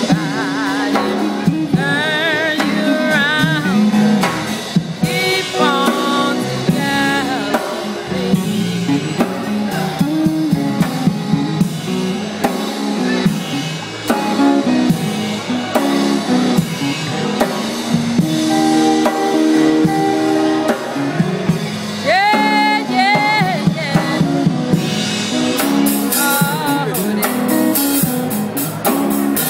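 Live church band music: a drum kit keeping a steady beat, with keyboard and a solid-body electric guitar playing and voices singing. Pitched notes bend up and down in places, around the 2–4 s stretch and about 22 seconds in.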